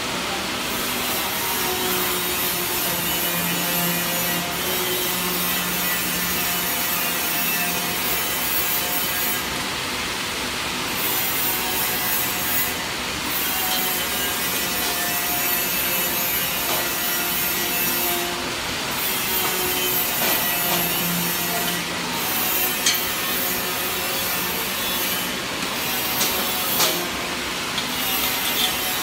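Cleated sidewall conveyor belt of an inclined elevator, running and rubbing against its metal frame with a steady scraping noise. A few sharp clicks come near the end.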